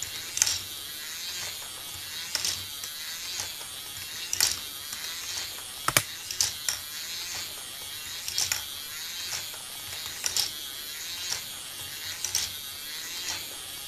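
K'nex jigsaw ball lift running: its small electric motor and plastic gears whir steadily, with sharp plastic clacks about every two seconds as the balls are stepped upward.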